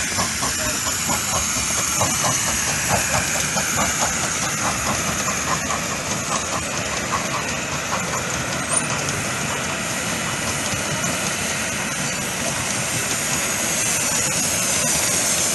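Miniature steam locomotive, a model of Southern Railway No. 850, pulling away with its train: a quick, even run of exhaust chuffs over a steady steam hiss. The chuffs fade after about eight seconds as it draws off.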